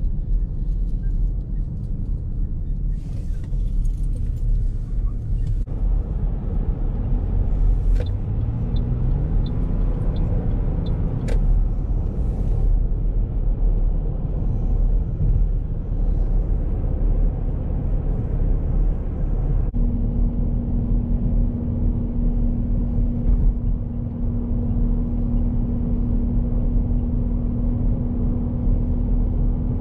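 Car driving at highway speed, heard from inside the cabin: a steady low rumble of engine and road noise. The engine note rises as it speeds up about ten seconds in, and a steady low hum joins about two-thirds of the way through.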